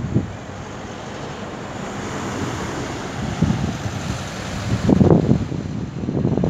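Wind buffeting the microphone in gusts, heaviest about five seconds in, over a steady rush of wind and gentle surf.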